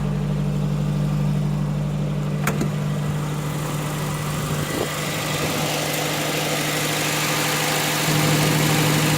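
1981 Datsun pickup engine idling steadily, just started after the starter housing was grounded with a jumper cable, which points to a bad starter ground behind the no-crank.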